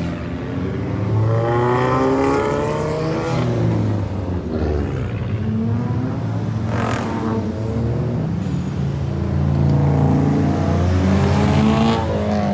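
Cars accelerating past one after another, engines revving up with rising pitch, a car sweeping up about a second in and another building up near the end.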